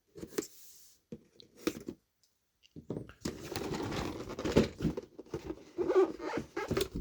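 A cardboard miniatures kit box being opened by hand: a few short scrapes and taps, a pause, then about four seconds of busy rustling and crinkling as the lid comes off and the packaging and plastic contents are handled.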